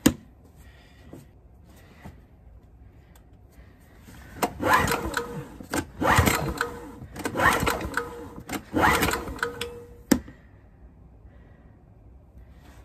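Recoil pull-starter of an SF2600F 2600 W inverter generator pulled four times in quick succession, each pull about a second of the small engine cranking over without firing. The last pull ends with a sharp clack as the handle snaps back. The engine will not start, and the owner suspects fuel is not reaching it.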